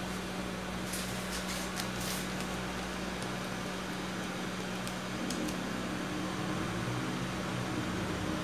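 Steady low machine hum under a background hiss, with a few faint clicks about a second in and again about five seconds in.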